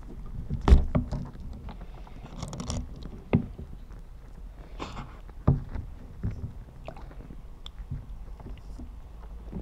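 Snack pot and its packaging handled underwater, heard through a hydrophone: knocks and clunks, the loudest about a second in and others near three and a half and five and a half seconds, with short packaging rustles between, over a low rumble.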